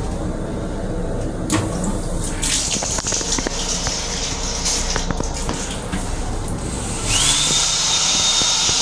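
Sink faucet in a train car's restroom running water into a basin for a few seconds, then the hand dryer's blower starting about seven seconds in with a rising whine that settles into a steady rush of air. A low rumble from the moving train runs underneath.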